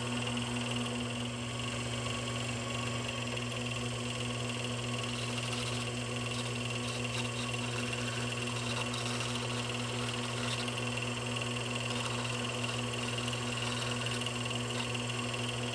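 Wood lathe motor running steadily at slow speed, a constant electric hum while the pen blank spins for its CA super glue finish.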